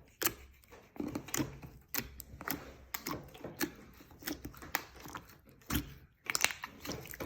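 Slime being squeezed and popped in the hands, giving a run of sharp, irregular pops and clicks, about two a second.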